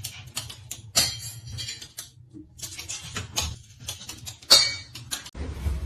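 Irregular light clicks and clinks, like small hard objects knocking together, with sharper ones about a second in and about four and a half seconds in.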